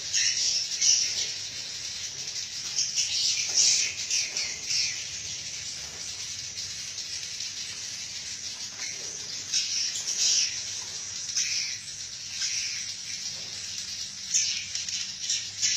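Edible-nest swiftlets twittering: a dense, overlapping stream of short high chirps that comes and goes in clusters.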